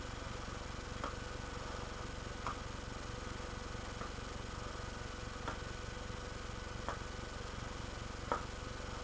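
Faint, evenly spaced clicks, about one every second and a half, over a steady low electrical hum and hiss.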